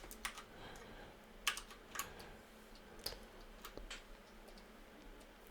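Faint, scattered clicks on a computer keyboard, about half a dozen isolated taps spread over several seconds.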